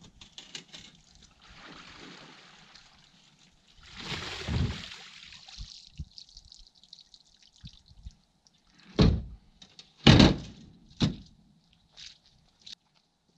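Rainwater pouring out of a portable feed bunk as it is tipped up on its side to empty it. The pour builds to a rush and dies away, and about nine seconds in come three heavy thuds as the bunk on its metal frame is set back down, with a couple of lighter knocks after.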